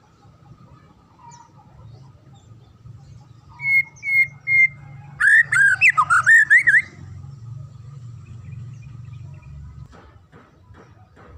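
White-rumped shama singing: three short whistled notes a few seconds in, then a loud, rapid run of bending, warbling whistles lasting under two seconds.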